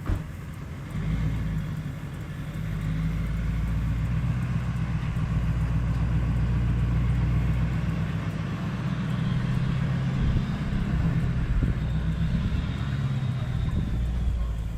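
Vehicle engine running at low speed, a steady low hum that swells over the first few seconds and then holds even, as a trailer is backed into place.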